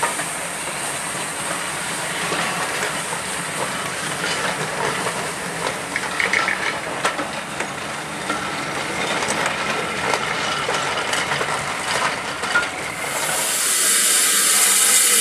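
Passenger coaches rolling past behind a steam locomotive, wheels clicking over the rail joints, with a brief high squeal about six seconds in. Near the end a loud steady steam hiss from a standing tank engine, No 55, takes over.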